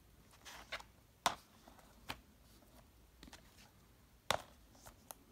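Plastic DVD and VHS cases clicking and tapping as they are handled, set down and picked up one after another: six or so short sharp clicks, the loudest about a second in and again after four seconds.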